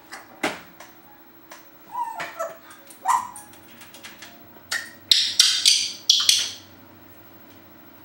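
Timneh African grey parrot vocalizing: a few sharp clicks, then two short squeaky calls that slide in pitch. Near the end comes a quick run of about four loud, harsh, raspy calls.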